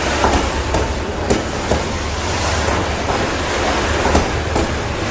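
Diesel-electric freight locomotive running hard in throttle notch 7, a loud, steady low engine drone, roaring loud, with a few sharp wheel clicks on the rails.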